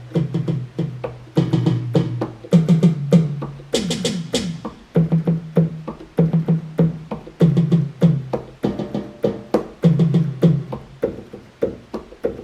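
Drum-kit voice of a Yamaha PSR-350 portable keyboard played key by key: a quick run of sampled percussion hits, several a second, with one bright cymbal-like crash about four seconds in.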